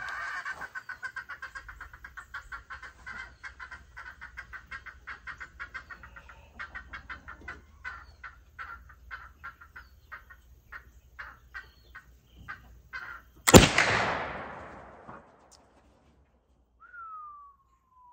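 A .36-caliber Tennessee Valley Arms poor boy flintlock rifle fires once about three-quarters of the way in: a sharp black-powder shot that rings on for over a second. Before it, a bird calls in a long run of rapid repeated notes that gradually slow and space out, and a short falling whistled note comes near the end.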